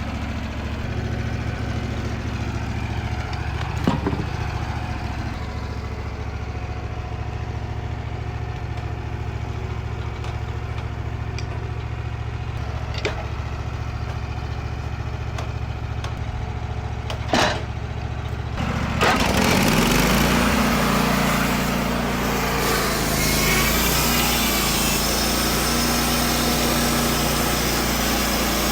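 Wood-Mizer LT15WIDE portable band sawmill running: its engine idles steadily with a few sharp clicks, then about two-thirds of the way through it gets much louder as the band blade engages and cuts into a cedar log, a loud hissing cutting noise over the working engine.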